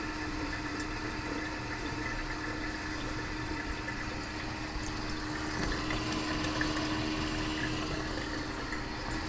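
A PC water-cooling pump running with a steady hum while coolant circulates through the loop, with air still trapped in the radiators. The flow is weak even at the pump's highest setting, which the builder suspects is a faulty pump.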